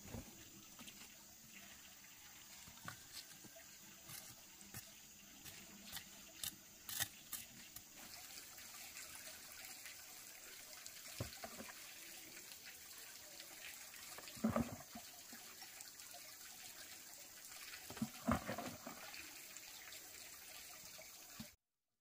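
Water trickling and splashing, with scattered light clicks and a few louder knocks; the sound cuts off suddenly near the end.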